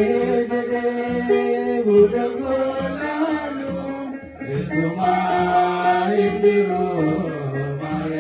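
An Ethiopian Orthodox hymn (mezmur) in Afaan Oromo, sung by a man through a microphone, with a kebero drum beating steadily beneath the singing.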